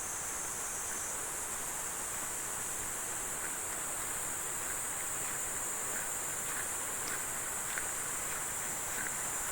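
A continuous high-pitched insect drone over a steady hiss of flowing valley water, with a few faint ticks scattered through.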